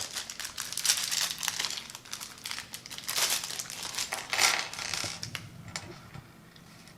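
Plastic parts bags crinkling and rustling as a case's accessory hardware is sorted through by hand, with a few light clicks of small parts, easing off near the end.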